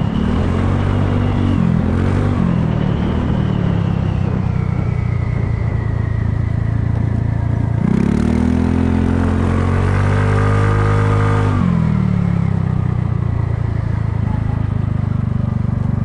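Kymco People scooter's engine running under the rider. Just past halfway it revs up for about three seconds, then drops back as the throttle eases.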